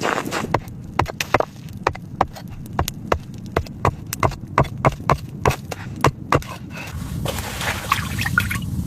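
A run of sharp, irregular knocks or taps, about two to three a second, that stops about seven seconds in and gives way to a low steady rumble.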